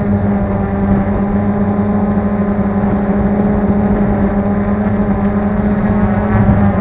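Multirotor drone's propellers and motors humming steadily at one pitch as it hovers low over pavement, heard from a camera mounted on the drone.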